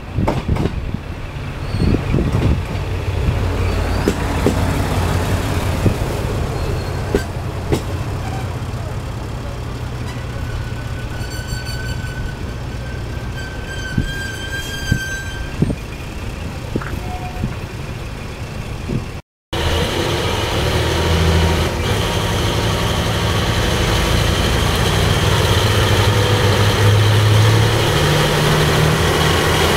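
Diesel railcar engines running at a station: a KiHa 220 diesel railcar pulls in with a low engine hum and a high squeal near the middle. After a break, the KiHa 58-series diesel express cars roll in alongside, their engines running louder with a low throbbing.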